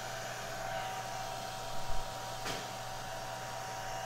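Hair dryer running with a steady whir and a faint hum, used to soften speaker adhesive inside a laptop. About two seconds in there is a low thump, followed just after by a sharp click as parts are handled.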